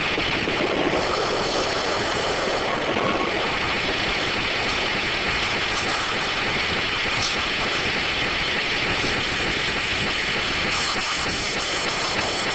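Circular sawmill running, a steady, unbroken mechanical noise.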